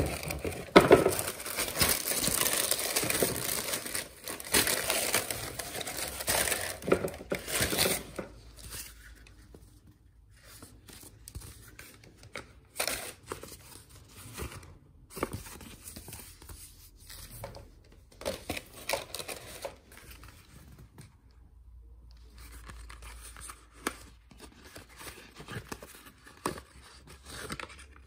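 Tissue paper and packaging crinkling loudly for about the first eight seconds as sneakers are moved in a lined shoebox, then quieter intermittent rustling and handling of cardboard and paper inserts with scattered clicks.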